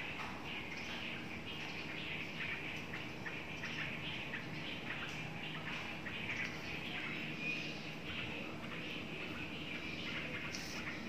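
A chorus of small birds chirping continuously, many short overlapping calls.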